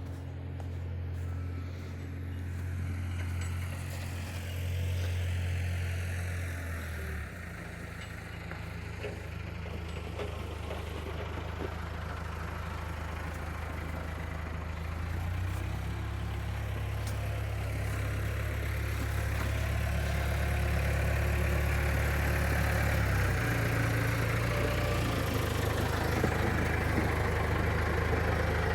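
2011 Ford F750 rollback tow truck's engine running steadily, a low hum that shifts pitch about a quarter of the way in, around halfway and again past three-quarters, growing gradually louder.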